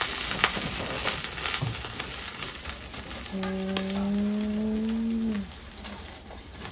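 Meat sizzling on a camp grill, a steady fine hiss that quietens about five and a half seconds in. Over it, a steady low hum of about two seconds begins a little past the three-second mark.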